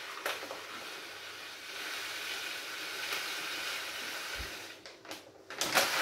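Coarse dishwasher salt pouring from a plastic pouch into a dishwasher's salt reservoir, a steady hiss lasting about four seconds. Near the end the pouch crinkles as it is lifted away.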